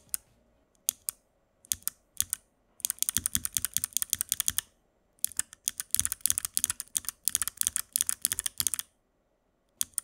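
Kailh Box Thick Click Jade clicky mechanical keyboard switches being typed on: a few single presses, then two quick runs of rapid keystrokes. Each press gives a loud, defined click from the thick click bar snapping back.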